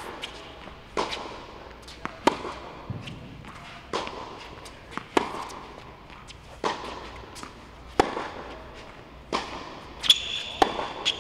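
Tennis rally on an indoor court: racket strokes on the ball and ball bounces going back and forth, a hard hit about every one to one and a half seconds, each echoing in the hall. A brief high squeak near the end.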